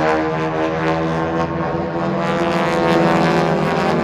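Formation of piston-engine propeller aerobatic planes flying overhead, their engines and propellers making a loud, steady drone of many overlapping tones.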